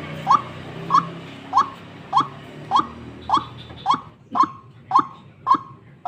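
White-breasted waterhen (ruak-ruak) lure bird calling in a steady series of short, even notes, a little under two a second.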